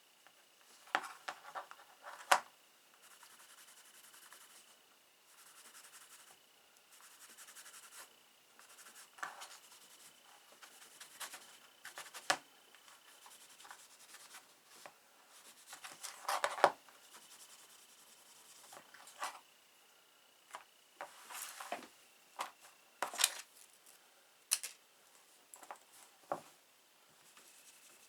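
Nevr-Dull polishing wadding rubbed back and forth on the metal of a small Zippo pocketknife, in soft stretches of rubbing, with scattered sharp clicks and taps as the knife is handled.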